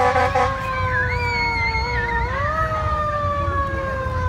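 Fire truck siren wailing: a slow fall in pitch, a quick rise about two seconds in, then a slow fall again. A brief loud blare sounds right at the start, and a second, higher wavering siren joins briefly in the middle, over a low engine rumble.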